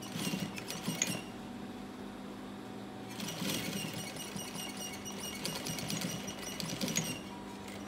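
Gemsy industrial sewing machine stitching through denim: a short run of about a second, then, after a pause, a longer run of about four seconds. The needle ticks rapidly over the machine's steady motor hum.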